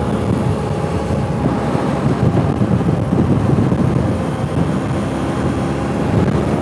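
Motorcycle riding at steady highway speed: a constant rush of wind on the microphone over the running engine, with a faint steady engine tone coming through near the end.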